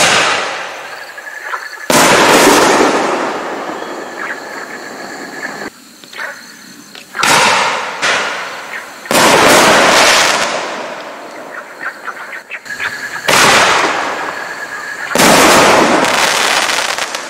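Aerial fireworks going off in three rounds. Each round is a sharp bang, then about two seconds later a louder burst that trails into long crackling.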